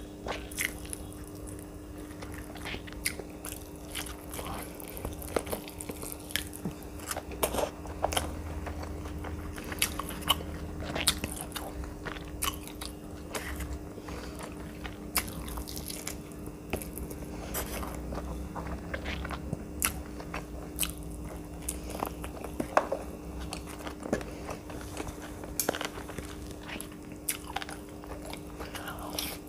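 Close-miked eating: crunching bites and chewing of saucy fried chicken, with many sharp crunches spread through. A faint steady hum runs underneath.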